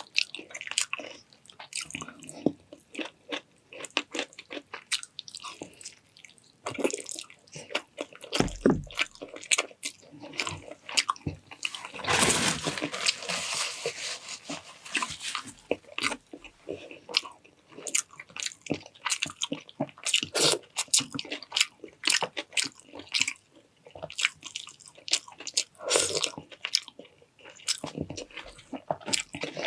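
Close-up eating sounds of a person chewing, biting and crunching food, with many short wet clicks and smacks; about twelve seconds in comes a denser, hissier stretch of some three seconds.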